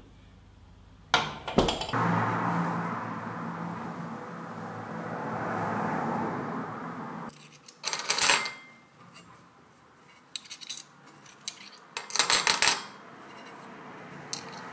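A kiln door's handle and latch clack open, followed by a few seconds of steady rushing noise. Then glazed porcelain rune stones clink against each other and their ceramic dish as a hand picks them up, in two loud bursts with light ticks between.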